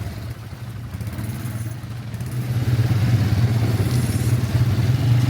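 ATV (quad bike) engine running under way, getting louder about halfway through as it is throttled up, with some rattling.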